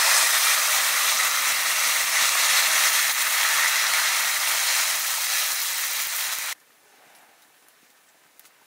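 Food frying in hot oil in a pan: a steady crackling sizzle that cuts off abruptly about six and a half seconds in, followed by near silence with a few faint clicks.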